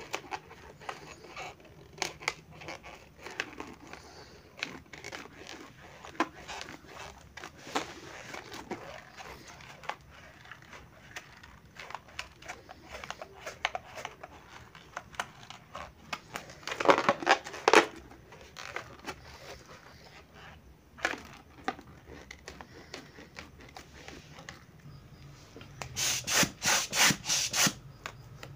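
Rubber balloons being handled: scattered squeaks, crinkles and taps. A louder flurry comes just past the middle, and near the end there is a quick run of rubbing strokes as a balloon with smaller balloons inside it is shaken.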